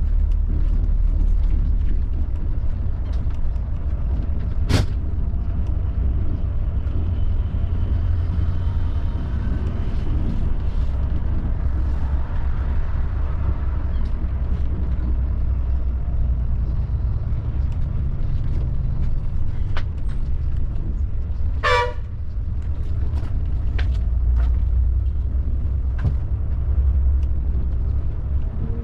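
Volvo B11R multi-axle coach running steadily on the road, a constant low rumble. A sharp click about five seconds in, and a short horn honk about twenty-two seconds in.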